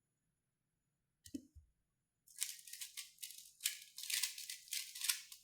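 A 3x3 Rubik's Cube being speed-solved: rapid plastic clicking and clacking of the layers turning, in quick bursts with short pauses, starting about two seconds in. It comes after a single soft thump.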